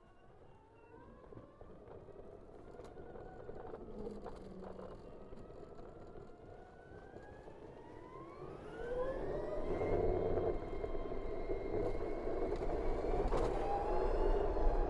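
BMW CE 04 electric scooter's motor whine, several stacked tones rising in pitch as it accelerates, once near the start and again more strongly about eight seconds in, then holding steady. Wind and road noise grow louder as the speed builds.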